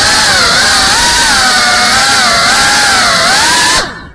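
FPV quadcopter's electric motors and propellers whining loudly, the pitch wavering up and down with the throttle. Near the end the whine falls in pitch and dies away as the motors spool down.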